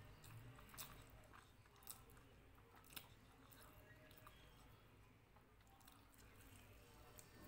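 Faint close-up chewing of a mouthful of rice eaten by hand, with a few sharp, wet mouth clicks about one, two and three seconds in.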